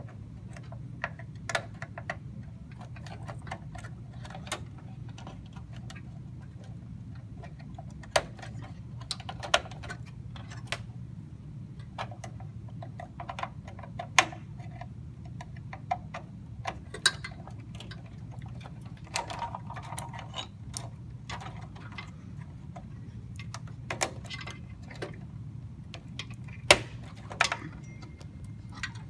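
Irregular small plastic and metal clicks and knocks of computer parts being handled, RAM sticks being pressed into their motherboard slots, over a steady low hum. The sharpest click comes near the end.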